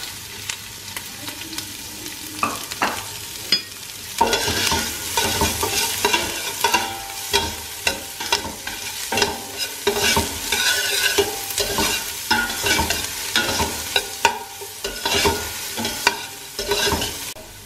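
Chopped onion and carrot sizzling in melted butter in a stainless steel pot while a metal spoon stirs them, scraping and clinking against the pot. The sizzling is steady for the first few seconds, and the stirring strokes come thick and fast from about four seconds in.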